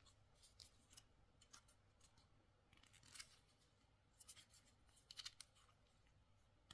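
Faint plastic clicks and scraping as a snug plastic case is worked open by hand, a few small snaps bunched in the second half.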